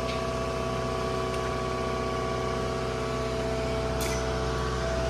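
An engine idling steadily, with a brief sharp click about four seconds in.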